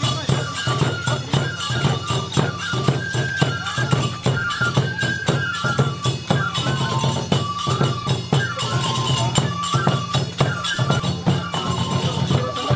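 Japanese shishimai lion-dance festival music: a fue transverse flute plays a high melody over rapid, regular strokes of taiko drum and tebiragane hand cymbals.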